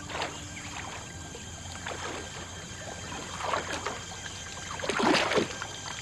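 Water sloshing and splashing as people wade waist-deep through a swamp, in irregular swishes, the loudest near the end.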